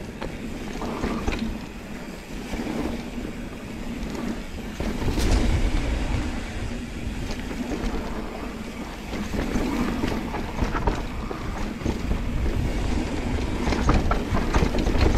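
Mountain bike rolling down a dirt trail: tyres rumbling over the ground and the bike rattling and clicking over bumps, with wind buffeting the microphone in gusts.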